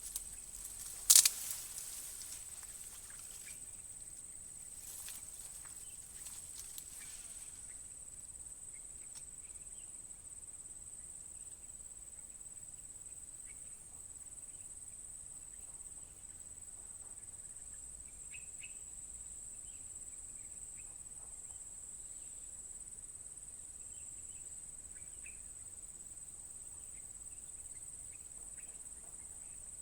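A steady high-pitched insect drone from crickets, with faint scattered chirps. A sharp click about a second in is the loudest sound, and a few smaller clicks and rustles follow over the next several seconds.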